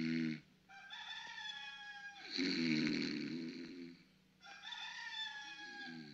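Someone snoring comically: a low rattling snore followed by a long, slightly falling whistle, the pair heard twice.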